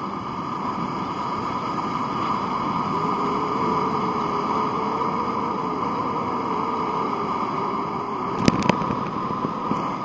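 Steady rushing noise of a ferry underway on open sea: wind over the camera mixed with the boat's engine and water. A faint steady hum comes in about three seconds in and fades about eight seconds in, and there are two sharp clicks near the end.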